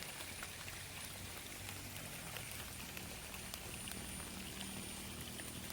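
Water flowing steadily through a small weir, an even watery rush with faint scattered ticks.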